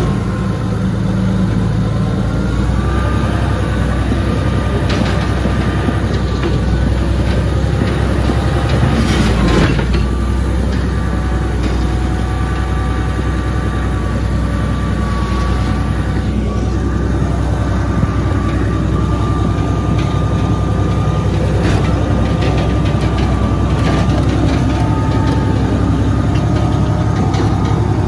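Komatsu bulldozer's diesel engine running steadily under load, with a steady high whine over it and occasional knocks from the machine.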